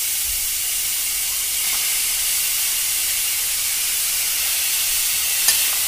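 Chopped onions sizzling in hot oil in a stainless-steel kadhai: a steady frying hiss, with a light click near the end.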